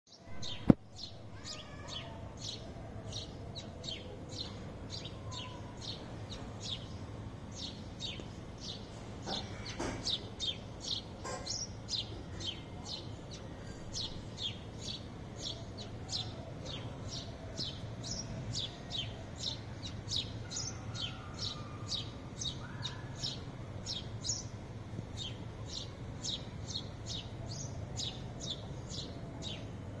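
Sparrows chirping: a steady run of short, high chirps, about two a second, over a low steady hum. A sharp click sounds just under a second in.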